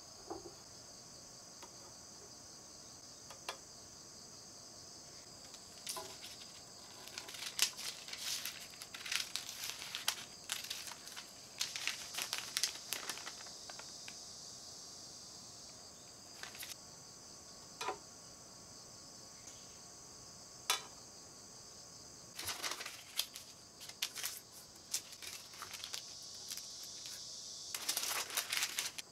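Baking paper being folded and creased by hand, crinkling in two long spells, with a few light ticks between them. A steady high chirring of insects runs underneath.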